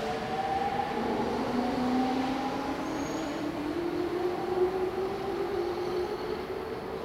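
JR East E231-800 series electric commuter train pulling away from a station. Its VVVF inverter and traction motors give a whine of several tones that climbs slowly in pitch as it accelerates, over the rumble of the wheels on the rails.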